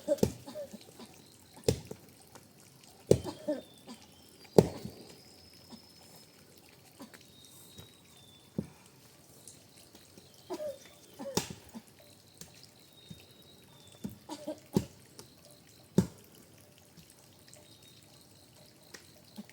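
Irregular drips and splashes of water, about a dozen, one to four seconds apart, some with a brief plink.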